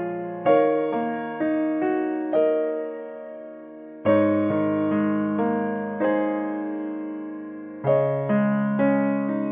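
Piano music: notes and chords struck every second or so, each ringing and fading away. Two longer pauses are followed by fresh, louder chords about four seconds in and again near the end.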